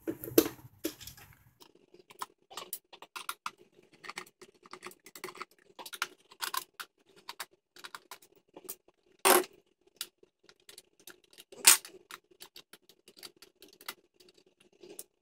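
Screws being undone from the surge protector's aluminium case with a hand screwdriver: irregular small clicks and scrapes, with two sharper knocks in the second half.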